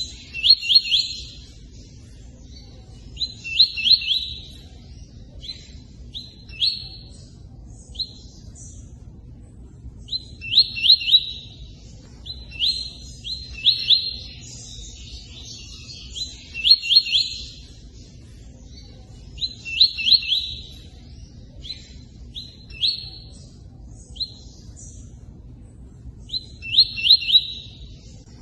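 Bird song sold as Tui Tui 'cortando canto': short phrases of three or four quick, high, rising notes, repeated every two to three seconds with pauses between, over a steady hiss of running water.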